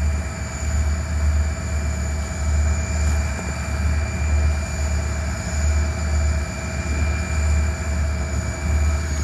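Freight train of tank cars on the track: several steady high whining tones over a low rumble that swells and fades in a steady rhythm.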